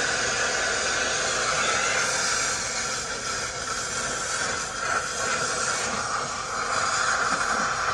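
Oxy-fuel cutting torch flame hissing steadily as it heats the steel ABS tone ring on a brake rotor hub, easing slightly for a few seconds midway.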